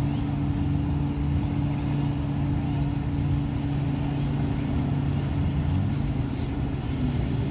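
An engine drones at a steady, unchanging pitch.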